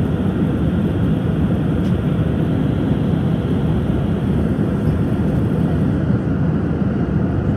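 Steady engine and airflow noise inside the passenger cabin of an Airbus A319 airliner in flight: an even, low rumble that does not change.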